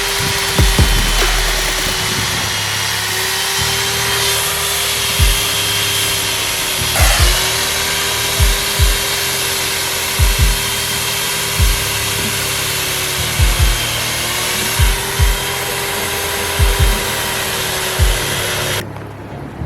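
Chainsaw running at speed and cutting into a block of ice, its motor tone sagging briefly a couple of times under load, over background music with a steady beat. The saw cuts off abruptly near the end.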